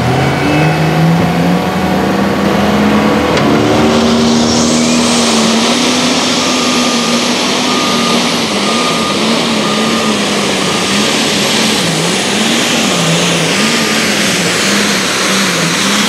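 Heavy super stock pulling tractor's engine at full throttle under load from the sled, climbing in pitch over the first couple of seconds, with a high whine rising about four seconds in. In the second half the engine pitch sways up and down about once a second.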